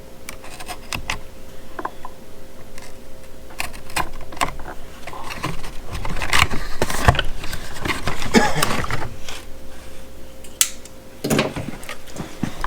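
Cardboard box and packing tape being cut and pulled open by hand: scattered clicks and taps, then a few seconds of louder rustling and scraping of cardboard, with another sharp click and a burst of rustling near the end.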